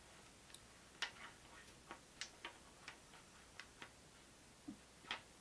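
Faint, irregular clicks of red plastic Star Wars: Destiny dice being set down on a wooden table and nudged against one another, about a dozen small knocks in all.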